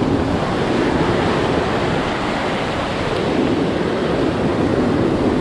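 Ocean surf breaking and washing up a sandy beach, a steady rush of noise, with wind on the microphone.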